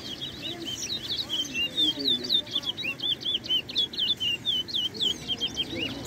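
Caged towa-towa (chestnut-bellied seed finch) singing in a bird race: a fast run of short, sweet chirping notes, several a second, going on without a break.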